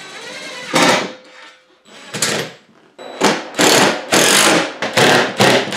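Cordless impact driver hammering cabinet screws with fender washers through a steel Unistrut channel into the ceiling joists, in a run of short bursts, more closely spaced in the second half.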